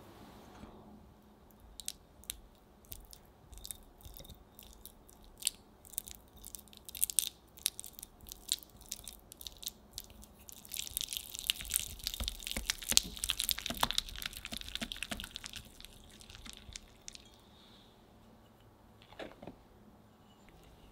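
Silicone-coated whisk mashing and beating softened butter in a glass bowl. It starts as scattered sticky clicks and squelches, then turns into quicker, steady whisking about halfway through, which eases off a few seconds before the end.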